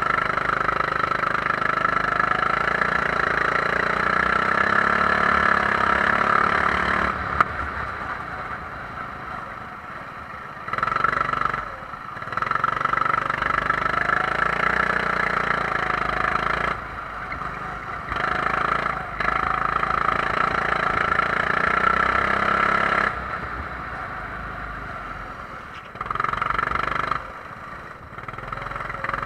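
Kart engine heard onboard, running at full throttle and rising in pitch along the straights, then dropping off sharply several times as the throttle is lifted for corners.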